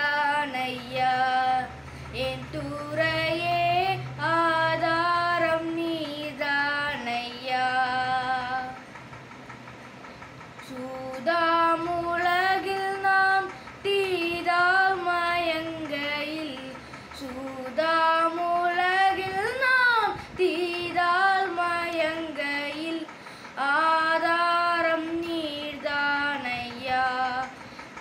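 A boy singing a Tamil Christian song solo, with a pause of about two seconds around nine seconds in.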